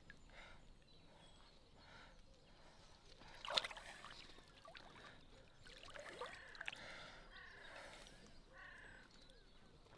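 Faint water sloshing and lapping as a common carp is released by hand in shallow lake water, with one small splash about three and a half seconds in.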